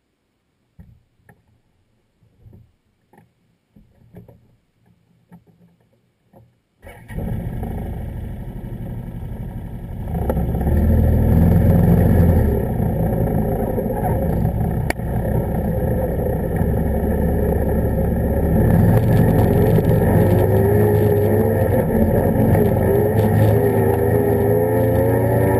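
Can-Am ATV's engine and running gear heard from a camera mounted by the front shock: a few faint clicks, then the engine sound comes in suddenly about seven seconds in and gets louder about three seconds later, staying steady, with its pitch wavering up and down near the end.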